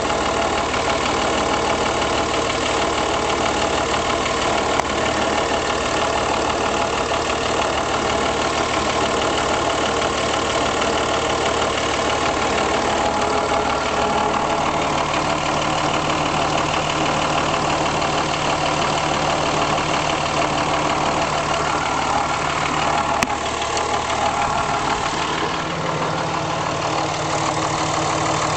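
2005 Dodge Ram's 5.9-litre Cummins inline-six turbo-diesel idling steadily, heard close to the engine for a strange noise, near the oil pan or the intake, that the owner is unsure is normal. Its tone shifts about halfway through and again near the end.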